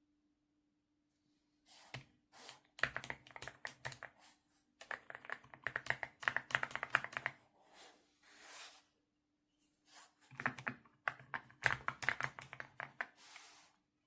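Typing on a YUNZII X98 mechanical keyboard with pre-lubed switches: fast runs of key clacks in several bursts with short pauses between, starting about two seconds in.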